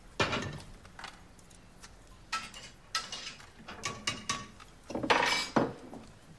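Domestic kitchen clatter: a series of separate clinks and knocks of glass and crockery, some ringing briefly, with a longer scraping clatter about five seconds in.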